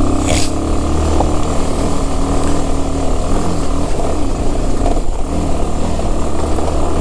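Motorcycle engine running steadily at low revs while the bike is ridden slowly over a rough dirt track.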